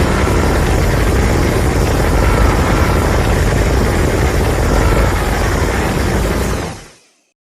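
Fan-made Godzilla monster sound effect: a loud, dense rumbling noise with a faint wavering pitch inside it, fading out near the end into silence.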